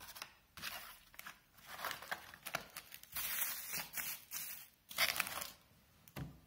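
Small cardboard boxes of firecrackers being slid across and set down on a wooden tabletop, with crinkling of plastic-wrapped packs, in short irregular scrapes and rustles.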